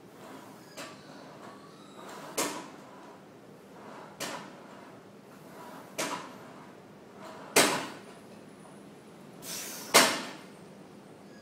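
Rowing-machine seat rolling to and fro along its rail under a person's feet, knocking at the end of each stroke roughly every two seconds. The loudest knock comes near the end, just after a short rolling rush.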